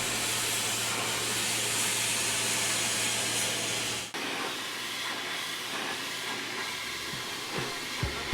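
Steam-cleaning gun hissing steadily as it sprays onto brickwork, with a steady low machine hum beneath. About four seconds in the sound cuts briefly, and a quieter hiss goes on without the hum.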